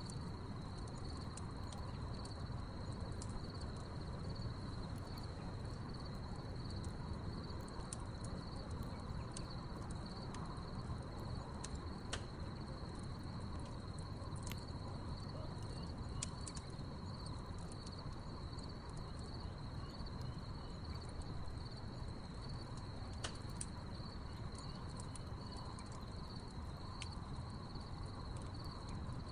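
Crickets trilling steadily over a crackling wood fire, with scattered sharp pops from the burning logs.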